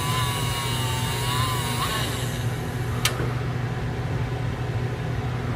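Motor-driven graver sharpening wheel running with a steady hum. A wavering high whine rides over it and stops about two seconds in, and a single sharp click follows about a second later.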